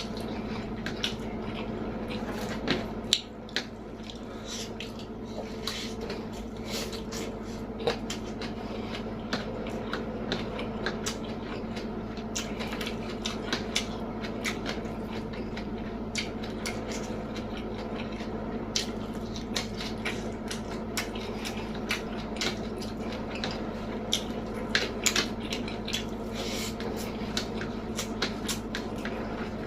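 Close-miked eating: chewing and mouth sounds of rice, omelette, eggplant sambal and salted fish, with many short clicks of cutlery on a plate. A steady low hum runs underneath.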